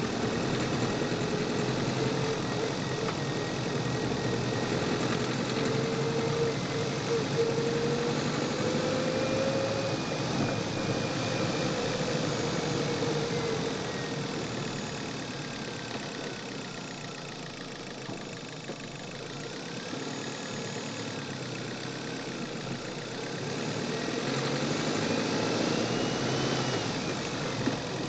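A manual Chevrolet's engine, heard from the engine bay, driving through the gears: its pitch climbs in the first ten seconds, eases off and quietens midway, then rises and falls again near the end. Near the end it knocks under acceleration, which the owner takes for fuel knock.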